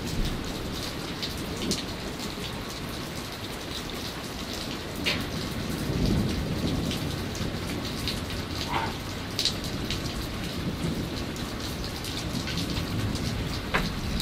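Heavy rain pouring steadily, with a low rumble of thunder swelling about six seconds in and a few sharp ticks of drops striking close by.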